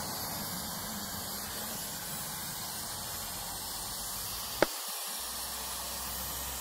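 Steady hiss, with one sharp click about four and a half seconds in.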